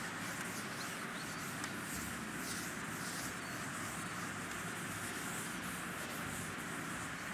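Chalkboard duster wiping across a chalkboard in repeated strokes, a soft scratchy rubbing.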